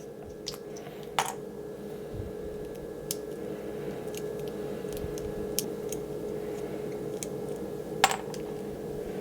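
Scattered light clicks and taps of small hard-plastic action-figure parts being handled as the figure's backpack comes off and its back screw is worked with a small precision screwdriver. A steady hum runs underneath.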